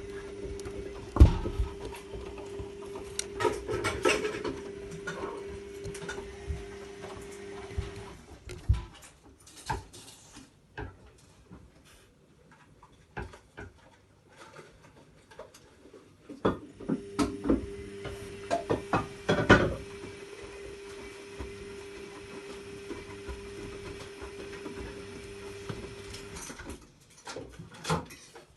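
Zanussi Lindo 100 washing machine tumbling the wash. The drum motor hums steadily for about eight seconds, stops for about eight, then hums again for about ten, with knocks from the load in the drum.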